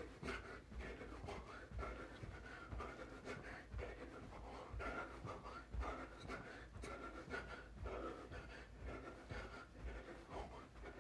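A person doing jumping jacks: feet landing on a carpeted floor in a steady rhythm of soft thumps, about two a second, with heavy panting breath.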